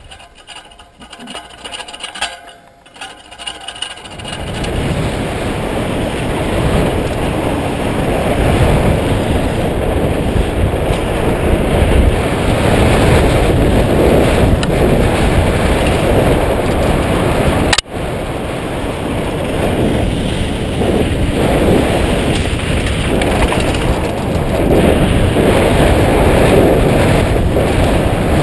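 Mountain bike ridden fast down a dirt singletrack, heard through a helmet camera: loud wind rush over the microphone with tyre and frame rattle. It takes over about four seconds in, after a few seconds of quieter clicks and handling noises while the bike is stopped, and it drops out for an instant about two-thirds of the way through.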